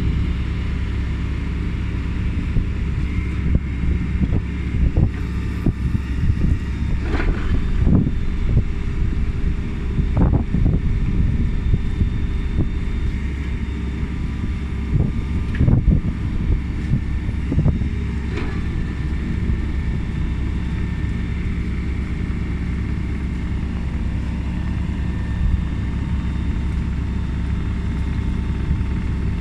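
Diesel engine of a Takeuchi TB295W wheeled excavator running steadily, with intermittent knocks and clanks from the machine's work mostly in the first two-thirds.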